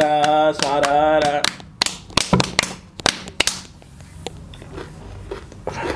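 A woman's sung folk line ends about a second and a half in, followed by a rapid run of sharp, crunchy clicks of close-miked chewing that thin out into fainter mouth sounds.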